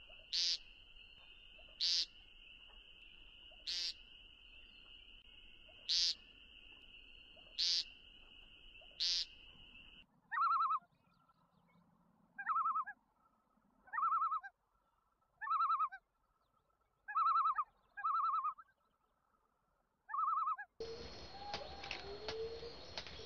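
American woodcock giving its short buzzy 'peent' call about every one and a half to two seconds, over a steady high tone. About ten seconds in, a run of shorter, lower-pitched bird calls follows at a similar pace. Near the end, a noisier recording with other calls begins.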